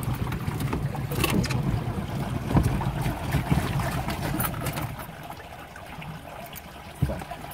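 A 1990 Toyota 4Runner's engine running low in deep floodwater, with water sloshing and knocking against the body. About five seconds in the running sound drops away as the flooded engine stalls.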